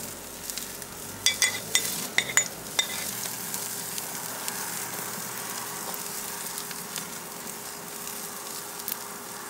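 Ghee and sauce sizzling on a leg of lamb and dripping onto hot charcoal in a kamado grill as it is basted, a steady sizzle with a few sharp clicks and pops about one to three seconds in.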